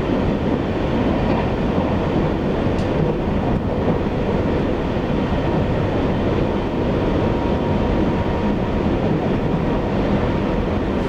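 Taiwan Railways EMU800 electric multiple unit running at speed, heard from inside the car: a steady rumble of wheels on rail with a faint steady whine, and a single click about three seconds in.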